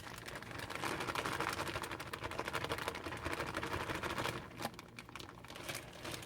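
Shredded coleslaw mix being shaken out of its plastic bag into a bowl: a dense, crackling rustle lasting about four seconds, followed by a couple of light clicks.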